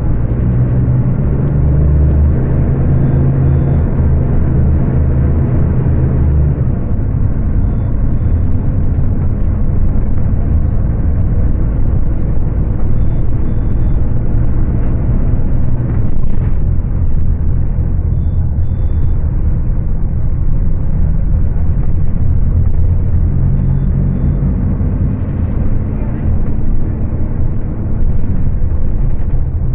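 Scania K250UB city bus engine running hard at high revs as the bus drives, its note shifting in pitch several times, described as screaming a lot.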